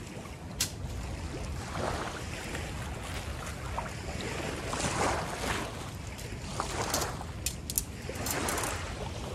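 Water sloshing and splashing in about four swells, over steady wind noise on the microphone, with a few sharp clicks.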